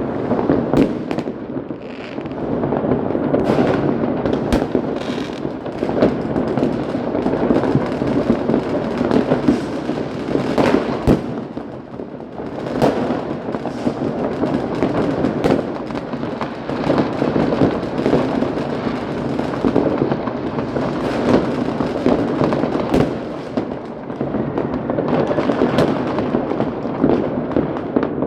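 Many fireworks and firecrackers going off at once: a continuous, overlapping crackle of bangs, with sharper single bangs standing out every second or so.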